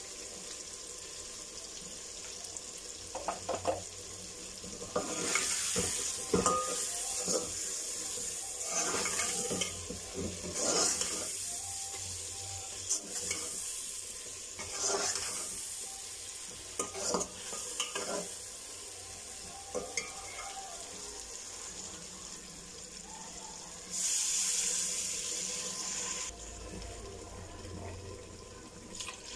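Potatoes and peas frying in oil in a metal pot, stirred with a long perforated steel spoon: a sizzling hiss that swells twice, with repeated clinks and scrapes of the spoon against the pot.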